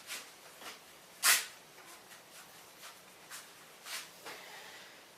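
Faint handling noises: scattered soft rustles and small clicks, with one sharper rustle about a second in.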